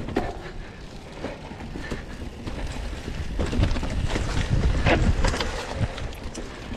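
Wind rumbling on the microphone of a mountain bike ridden downhill on a leaf-covered dirt trail, with tyre noise and scattered knocks and rattles from the bike over bumps. The wind rumble is loudest a few seconds in.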